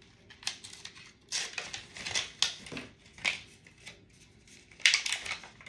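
Plastic blister packaging of a lipstick being handled and opened: a run of irregular crackling clicks and short scraping snips, loudest in a cluster near the end.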